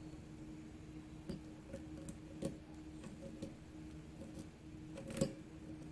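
Faint, irregular metallic ticks and clicks of a lock pick working the pin stack of a 6-pin LSDA padlock under light tension, with the loudest click about five seconds in, over a faint steady hum.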